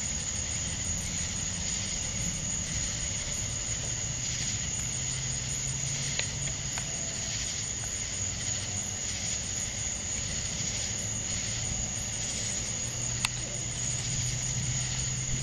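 Night-time chorus of crickets: a steady high-pitched trill with a faint regular pulsing. A low hum comes in about a third of the way through, and there is a single sharp click near the end.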